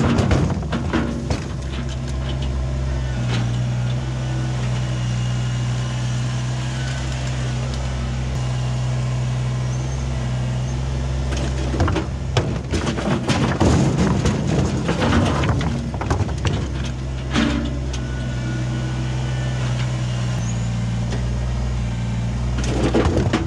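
Kubota BX23S compact tractor's three-cylinder diesel engine running steadily while its front loader tips loads of large rocks into a dump trailer. Stones land with heavy clattering knocks at the start, again over several seconds about halfway through, and near the end.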